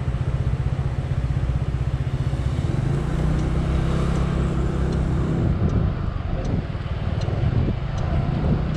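Scooter engine idling with a steady low pulse, then speeding up as the scooter pulls away about three seconds in. A faint regular ticking, about one and a half ticks a second, runs through the second half.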